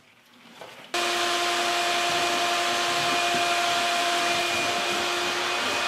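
Shop vacuum running steadily with a motor whine, starting abruptly about a second in.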